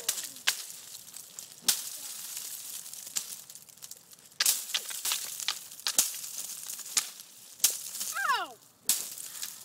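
Ice being knocked and broken off frozen branches: sharp cracks and clinks of breaking, falling ice, about one strike a second with a louder clattering spell about halfway through. A brief voice near the end.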